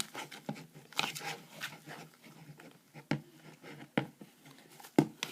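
Plastic spoon stirring thick, freshly activated slime in a bowl: irregular sticky clicks and taps, the sharpest about a second, three, four and five seconds in, as the mixture gets hard to stir.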